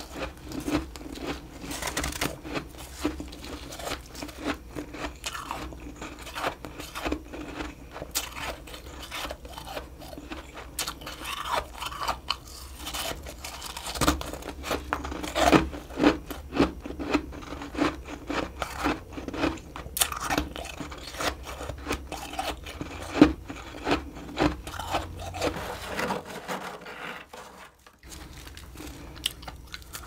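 Close-up crunching and chewing of powdery humidifier frost scooped from a mini freezer: a dense string of sharp crunches, with some scraping, easing off briefly near the end.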